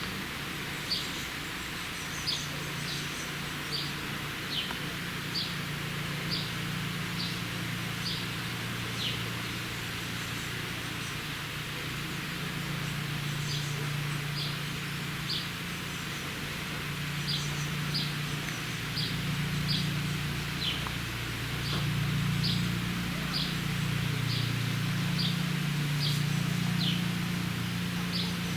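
A bird repeating short, high chirps about once a second, over a steady low hum that grows a little louder near the end.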